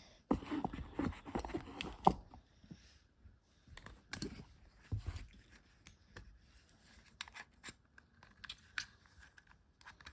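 Close handling noise: rustling and scraping of packaging, with a sharp click about two seconds in and scattered small clicks and rustles after it.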